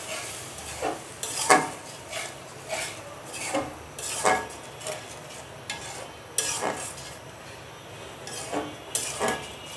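Metal spatula scraping and stirring spice paste in an aluminium karahi, with irregular scrapes about once a second over a light sizzle. The masala is being fried down with a little water.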